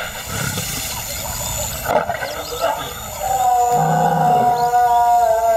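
An African lioness calling her pride: one long, drawn-out call starting about three seconds in and holding to the end, louder than the softer sounds before it.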